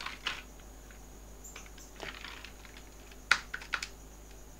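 Computer keyboard keystrokes: a handful of scattered key presses, the sharpest a quick cluster about three seconds in.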